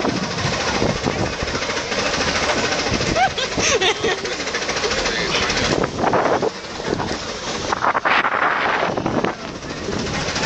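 Roller coaster train clacking rapidly and evenly on its track, with riders talking and shouting over it.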